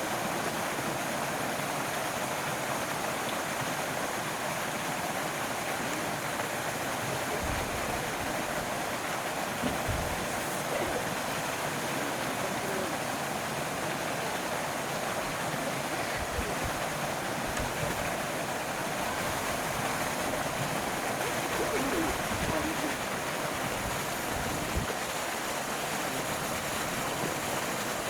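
Steady rush of running water, with a few short low thumps.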